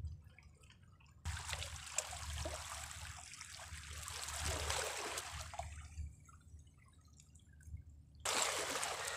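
Small sea waves washing in among shoreline rocks, trickling and splashing. One surge comes in about a second in, swells and dies away, and a second surge follows near the end.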